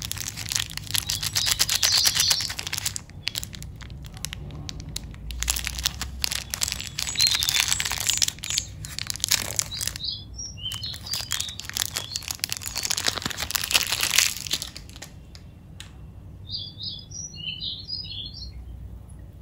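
Shiny wrapper of a Cadbury 5 Star chocolate bar crinkling and tearing as it is peeled open by hand, in three spells of dense crackle. Small birds chirp briefly twice in the background, about ten seconds in and near the end.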